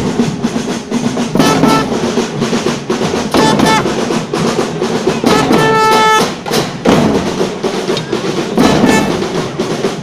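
Marching band drum section playing a steady march beat on bass drums and large snare or tenor drums, with short held brass notes breaking in four times.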